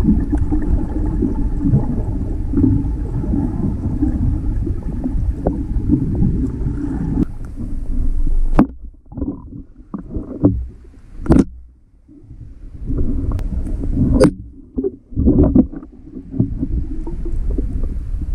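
Muffled water sound picked up by a camera held underwater: a dense low rumble of water moving over the camera. About seven seconds in it turns patchy, with quiet gaps, short gushes and a few sharp knocks.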